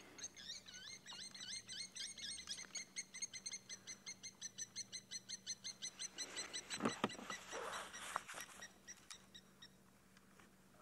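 An animal calling: a rapid, even run of high chirping notes, about four to five a second, that fades out near the end. A short rush of noise comes about seven seconds in.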